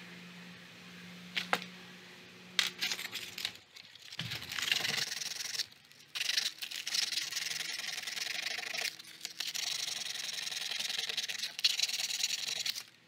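Hand-sanding a thin strip of split wooden clothespin with a folded sheet of sandpaper: a steady scratchy rasp of abrasive on wood. It starts about four seconds in, after two sharp clicks of the pieces being handled, pauses briefly twice and stops suddenly near the end.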